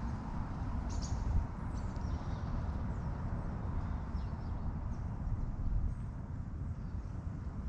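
Steady low rumble with a few faint, short high bird chirps.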